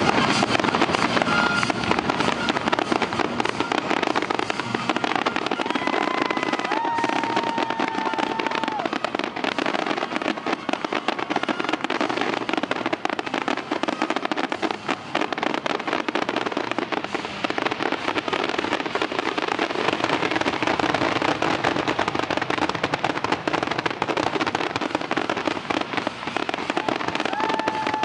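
Fireworks grand finale: a dense, continuous barrage of bangs and crackling from many shells bursting at once, with a high whistle standing out a few seconds in and again near the end.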